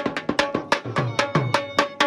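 Dhol, a double-headed barrel drum, beaten in a fast, even dance rhythm of about six strokes a second, with deep bass strokes mixed among sharp, cracking stick strokes.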